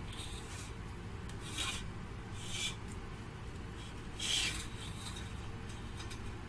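A freshly baked loaf of bread is handled and turned on a wire cooling rack, making four short scratchy rubbing sounds as its crust rubs. The loudest comes about four seconds in, over a low steady background hum.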